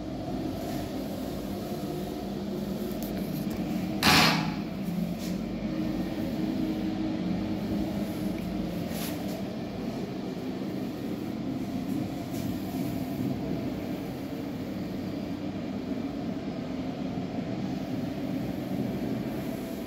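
A steady low hum in a small tiled room, with one sharp knock about four seconds in and a few fainter taps later.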